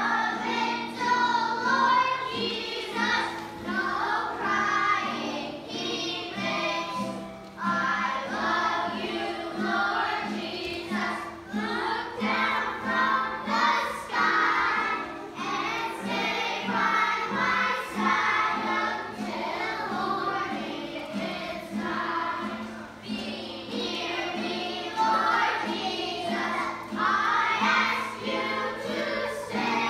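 A children's choir singing a song together, with sustained instrumental notes underneath.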